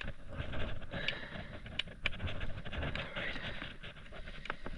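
Irregular clicks and scraping of hands and tools working on a stopped chainsaw, fixing a part that keeps working loose.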